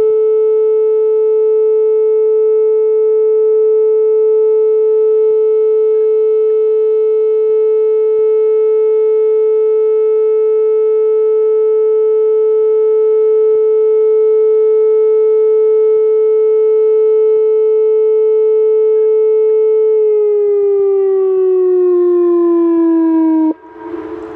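Whelen 2805 electronic civil defense siren sounding a loud, steady alert tone for a nuclear plant siren test. About 20 seconds in, its pitch glides down for a few seconds and then cuts off abruptly at the end of the test cycle, leaving a broad rushing noise.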